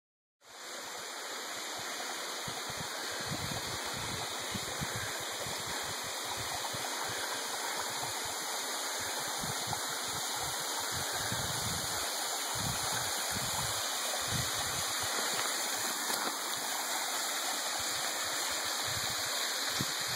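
Steady rushing of a creek running over rocks, with irregular low rumbles of wind on the microphone.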